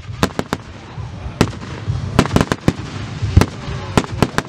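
Aerial fireworks shells bursting: a dozen or so sharp bangs and pops in irregular clusters, the loudest about three and a half seconds in.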